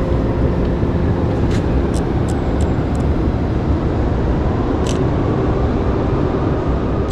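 City street traffic: a steady low rumble of passing cars, with a few short sharp clicks in the first half.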